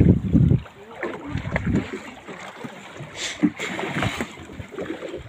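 Water sloshing and splashing against the side of a small boat, with wind buffeting the microphone in the first half-second.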